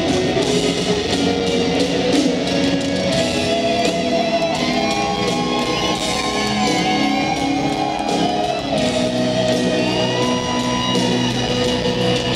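Live rock band playing a slow ballad, heard from the stands of a stadium: a lead electric guitar solo of sustained, bending notes over piano and the rest of the band.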